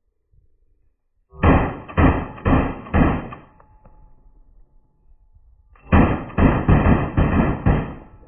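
Gunshots fired in quick semi-automatic succession: a string of four, a pause, then a string of about five, roughly two shots a second.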